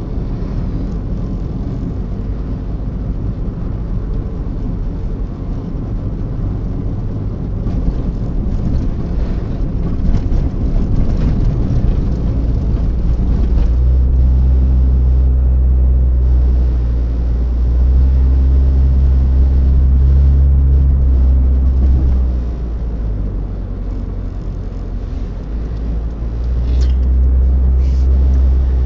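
Cabin noise of a moving car picked up by the dashcam: a steady low engine and tyre rumble. A deeper, steady engine drone comes in about halfway through, eases off a while later, and returns near the end.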